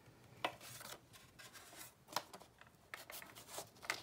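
Faint pen-and-paper handling on a clipboard: a tick mark being written and the data sheet rustled, with a few short scratches and taps.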